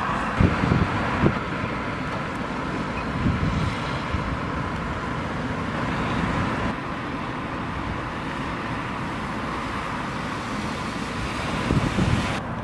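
Steady outdoor street ambience with a constant traffic hum. Gusts of wind buffet the microphone a few times, most strongly near the start and near the end.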